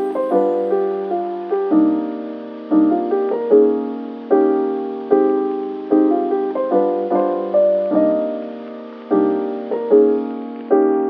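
Background music: a slow, gentle piano tune of single notes and chords, each note struck and left to fade.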